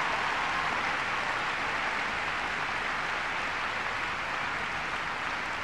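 Crowd applauding steadily, easing off slightly over the few seconds.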